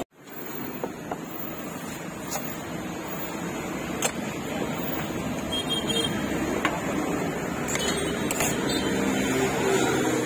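Steady street background noise, the hum of traffic and bustle, with a few light clicks and clinks; the sound drops out briefly at the very start.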